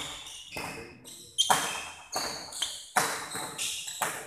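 Badminton doubles rally: racquets hitting a shuttlecock about six times in quick succession, roughly one sharp crack every three-quarters of a second, echoing in a large sports hall, with shoes squeaking on the court floor between strokes.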